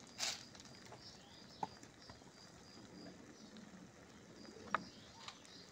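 Quiet outdoor background with a few sparse, light clicks and a faint repeating high chirp.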